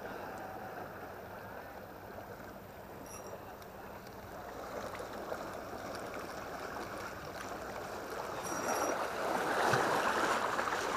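Sea water washing and splashing against shoreline rocks, a steady wash that grows louder near the end.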